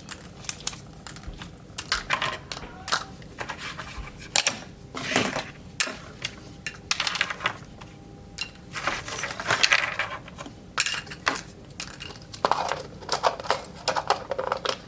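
Small plastic toy pieces being handled and dropped into a bowl: many irregular clicks and clatters, with short bursts of rustling.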